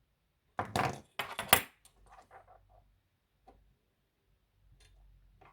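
Small metal hand tools rattling and clinking as they are handled on a workbench. There are two loud clattering bursts about a second in, then lighter rattles and a few single clicks.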